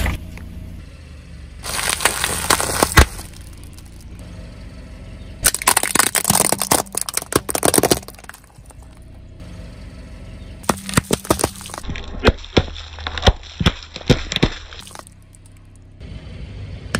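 A car tyre rolling over and crushing brittle objects on asphalt: bursts of crunching and cracking about two seconds in, from about five to eight seconds, and from about eleven to fifteen seconds, the last thick with sharp cracks. A low steady hum lies under the quieter stretches between them.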